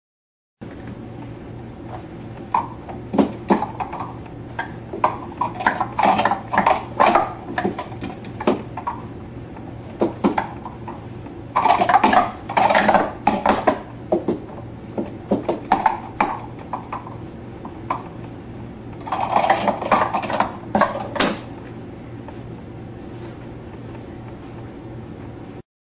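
Plastic sport-stacking cups clacking and clattering against each other and the mat in rapid flurries of clicks as pyramids are stacked up and taken down, over a steady low hum.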